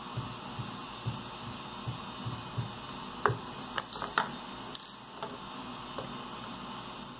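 Pliers and a nut clicking and scraping against a hand-held plastic part, with several sharp clicks from about three seconds in, the first the loudest. Soft low thuds come about twice a second in the first half, over a steady background hum.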